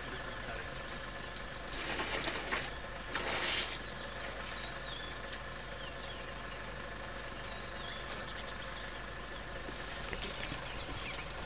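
Small birds chirping over a steady background hum, with two short rushes of noise about two and three seconds in and a few more near the end.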